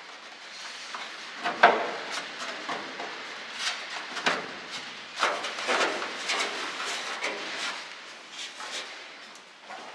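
A 3D-printed air-con tube being pushed and worked into a van's metal A-pillar to test its fit: irregular knocks, clunks and scraping, the loudest about one and a half seconds in.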